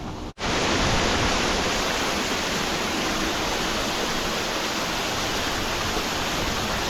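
Waterfall rushing: a loud, steady noise of falling water, starting after a brief cut about a third of a second in.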